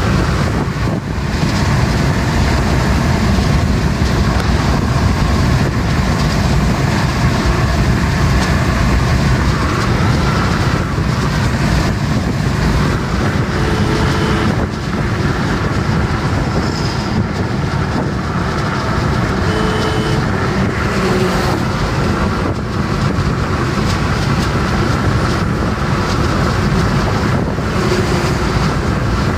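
Steady road noise inside a moving car's cabin at highway speed: low tyre and engine drone, with wind on the microphone.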